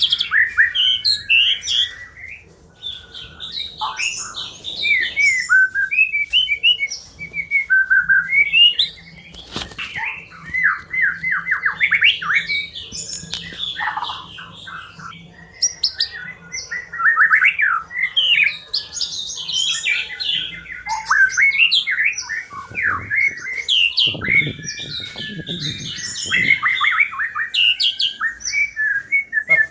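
White-rumped shama singing a long, varied song of clear whistles, rapid trills and chattering phrases that rise and fall in pitch, with only brief pauses.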